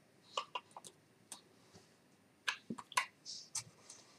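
A scattering of faint, short clicks and smacks, about eight in four seconds, with a brief breathy hiss a little past three seconds in.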